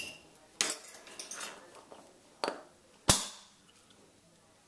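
Sparkling wine bottle being opened: a few crinkles and clicks as the foil and wire cage come off. About three seconds in, the cork pops out with a sharp pop and a short hiss of escaping gas.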